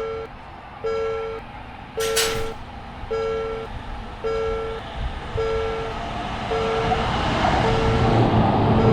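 Japanese level crossing warning alarm sounding a two-note ding about once a second, with a short hiss about two seconds in. A train's running noise rises through the second half, growing louder as it approaches.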